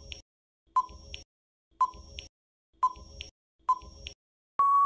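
Quiz countdown timer sound effect: a short electronic tick-beep about once a second, then a steady beep lasting about a second near the end, signalling that time is up.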